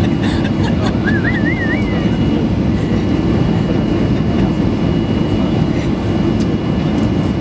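Steady cabin rumble inside a Boeing 737-800 taxiing, from its CFM56 turbofan engines and rolling landing gear, with light clicks and rattles. A brief warbling tone sounds about a second in.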